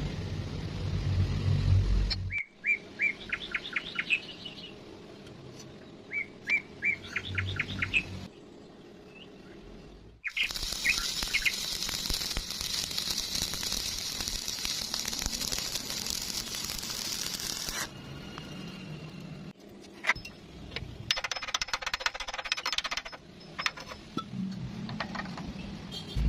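Bird chirping in short, rapid runs of notes, with about eight seconds of steady hiss starting around ten seconds in.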